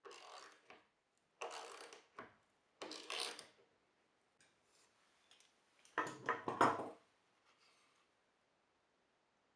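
Plastic spring clamps and a plywood board being handled on a wooden workbench: three short scraping rubs in the first few seconds, then a cluster of clacks and a knock about six seconds in as the clamps come off and the board is lifted.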